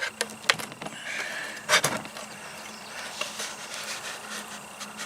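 Scattered light clicks and taps from handling a plastic coffee canister while fitting a perch. One knock, a little under two seconds in, is louder than the rest.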